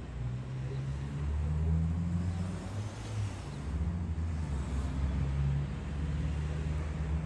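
Low rumble of a motor vehicle engine running, with a low hum that wavers in pitch.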